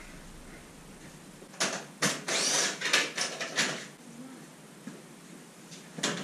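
Knocking, rattling and scraping of a sectional garage door panel as it is handled and lifted out of its metal tracks, with a burst of knocks and scrapes from about one and a half to four seconds in and another knock near the end.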